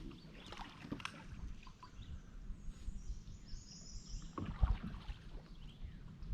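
Kayak paddling: water sloshing and lapping at the hull with scattered knocks on the kayak, and a louder low thump about four and a half seconds in.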